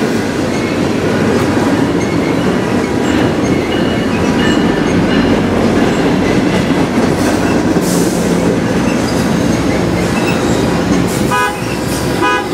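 Double-stack intermodal container freight train rolling past close by: a steady loud rumble and rattle of wheels and well cars on the rails, with faint whining from the wheels. Near the end, a quick run of short, repeated pitched tones sounds over the rumble.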